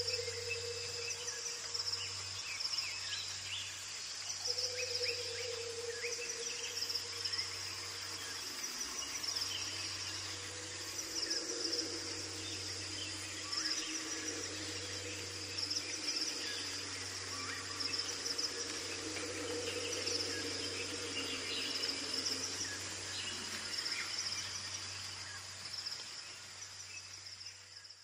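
Tropical rainforest ambience: insects trilling steadily in repeated high-pitched pulses, with scattered short bird chirps over a low hum, fading out near the end.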